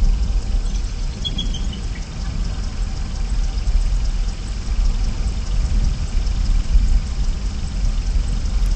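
Steady low rumbling noise with a hiss above it, picked up by an outdoor nest-camera microphone. A bird gives a few faint high chirps a little over a second in.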